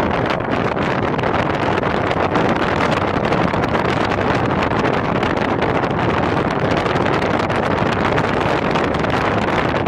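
Steady wind rushing over the microphone of an open-top Smart Roadster on the move, mixed with the car's driving noise.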